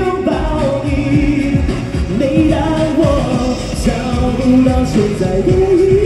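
A male singer sings a pop song live into a handheld microphone over recorded accompaniment with a steady beat, amplified through a PA system.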